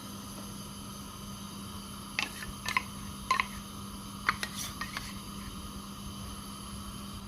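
A few light clicks and taps of kitchen utensils over a steady low hum, as ghee is put into a pan to heat.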